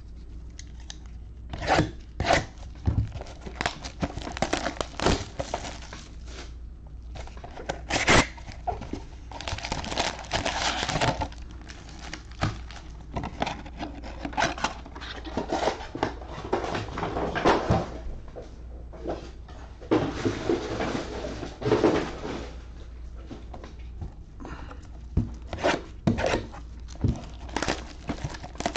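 Sealed cardboard boxes of trading-card packs being opened and the packs taken out by hand: cardboard and plastic wrap scraping, crinkling and tearing, with knocks as boxes are handled, in irregular bursts.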